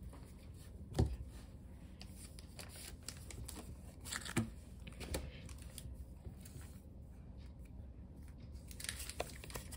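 Faint handling of Pokémon trading cards and a foil booster pack on a table: a soft knock about a second in, scattered light taps and rustles, then crisp foil crinkling and tearing near the end as the next pack is opened.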